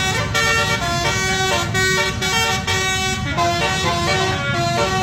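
Basuri telolet horn of the MSM Goldensky 08 bus playing a quick tune, one short stepped note after another, over a steady low rumble.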